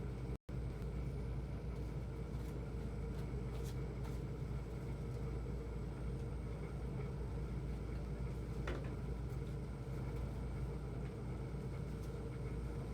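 Steady low mechanical hum, like a fan or motor running, with a few faint clicks. The sound cuts out for an instant just after the start.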